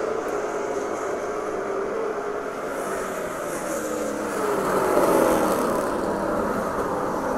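Race car engine running at racing speed around a short oval, its note holding steady and then falling in pitch over the last few seconds as the car slows for a corner.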